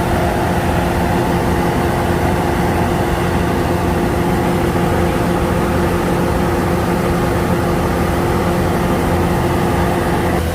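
Engine of heavy rice-harvesting machinery running steadily at constant speed, a loud, even drone with no rises or falls.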